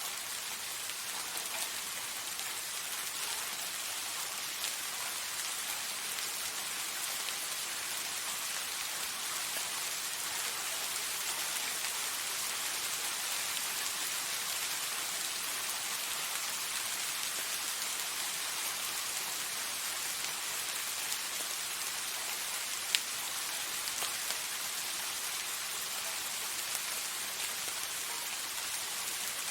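Soft rain falling steadily: an even hiss of rain with scattered light drop ticks, and one sharper tick about three quarters of the way through.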